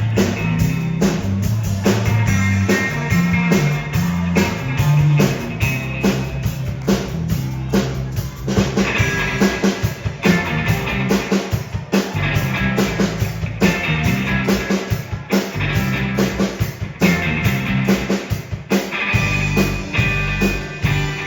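Rock band playing: a steady drum beat with bass and electric guitar.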